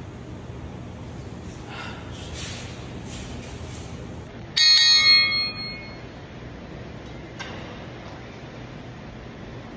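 A single bright, bell-like metallic ding about halfway through, ringing out and fading over about a second, above low steady room noise.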